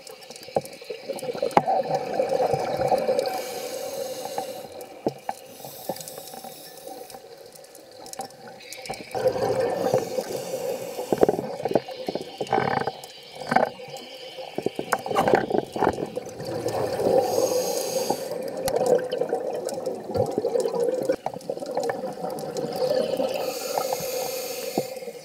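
Scuba regulator breathing heard underwater: a drawn-out hum on each inhalation, then a rush of exhaust bubbles, about three breaths in all, with small clicks throughout.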